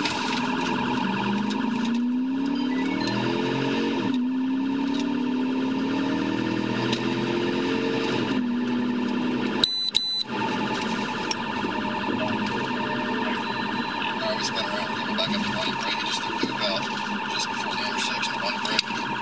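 Police patrol car siren sounding continuously, heard from inside the car, with the car's engine rising in pitch as it accelerates and dropping back about eight seconds in. A short high electronic beep sounds about halfway through.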